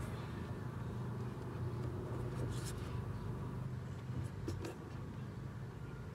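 Steady low outdoor background rumble, with a few faint clicks about two and a half and four and a half seconds in.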